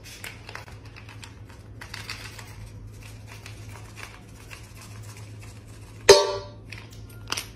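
Dry kibble trickling into a stainless steel dog bowl, a loose patter of small clicks and rattles over a low steady hum. About six seconds in the metal bowl is struck hard and rings briefly, followed by one smaller click near the end.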